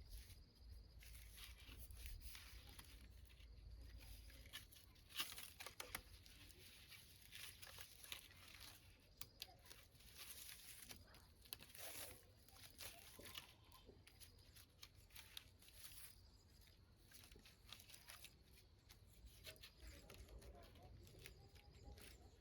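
Faint rustling and crackling, with scattered light clicks, a few of them sharper around the middle.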